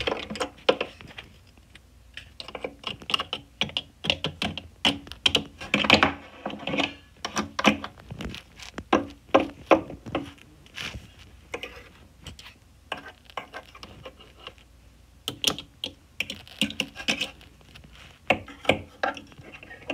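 Small plastic toy figures being handled and tapped against plastic toy furniture, making an irregular run of light clicks and taps.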